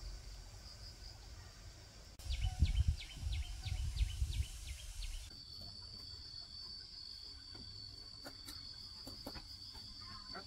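Insect chirring: a run of quick, evenly spaced high chirps gives way about halfway through to a steady high trill. Low thumps and rumbles, the loudest sound, come in the first half, and a few faint ticks come near the end.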